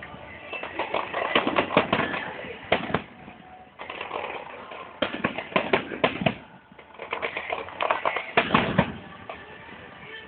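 Fireworks going off in three clusters of rapid sharp bangs and crackles, with short lulls between them.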